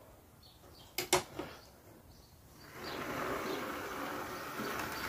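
Hornby OO-gauge Rebuilt West Country locomotive's small electric motor and gears humming as it runs on the track, running smoothly with its new idler gear. The hum drops away near the start. A few sharp clicks come about a second in, and the hum picks up again about three seconds in.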